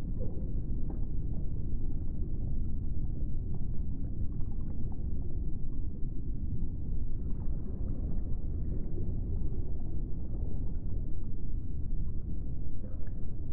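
Steady, deep rumbling ambient drone with faint scattered clicks above it. This is an added sound-design track, since the embryo itself makes no audible sound.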